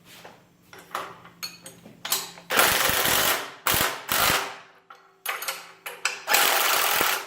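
Bolts holding the load cells to their mounts being tightened with a tool, giving a rapid ratcheting rattle in three short bursts, with lighter metal clicks and clanks between.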